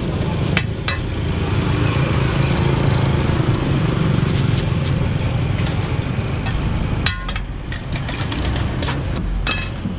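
A motor engine running steadily, with a few sharp clicks and knocks in the last few seconds.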